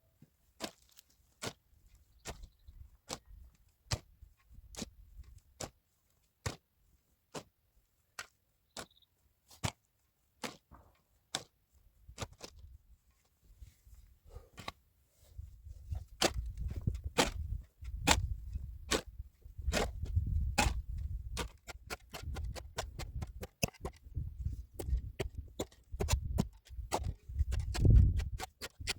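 A run of sharp, irregular knocks and clicks, a few a second. From about halfway they come faster over a low rumble.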